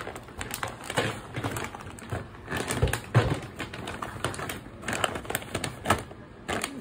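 Large plastic zip-lock bags of dry fried snacks being picked up and shifted, giving irregular crinkling and rustling with the snacks shaking inside, and a few louder knocks as bags are set down.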